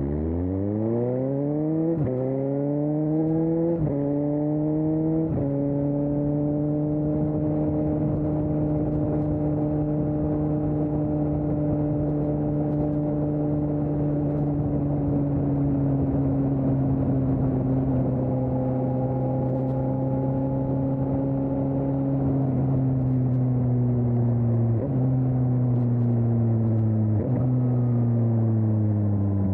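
Suzuki GSX-S750's inline-four engine through a Storm aftermarket exhaust, heard from on the bike as it accelerates through three quick upshifts. It then cruises at a steady engine speed, and near the end slows, its pitch stepping down twice.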